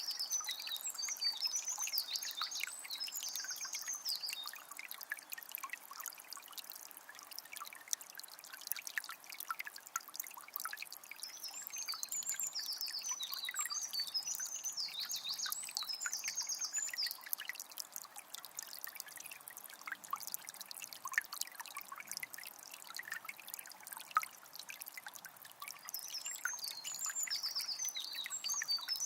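A small spring trickling and splashing steadily, with a songbird singing three phrases of warbling song a few seconds each: at the start, around the middle, and near the end.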